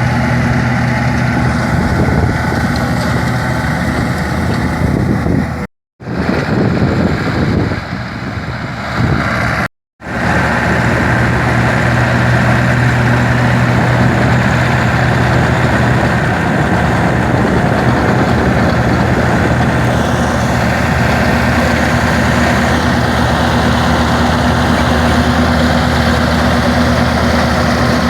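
Massey Ferguson 385 diesel tractor engine running steadily while driving a wheat-straw chopper-blower, with a steady rushing noise over the engine hum. The sound cuts out completely twice for a moment, about six and ten seconds in.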